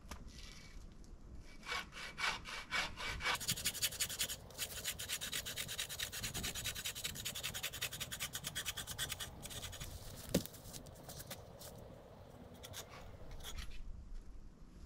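Hand saw cutting through a tree branch in quick, regular back-and-forth strokes. A few slower strokes start it off about two seconds in, and it stops shortly before the end.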